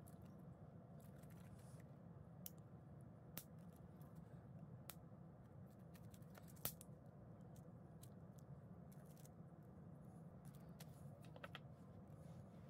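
Near silence: a steady low room hum with a few faint scattered clicks, the loudest about two-thirds of the way through.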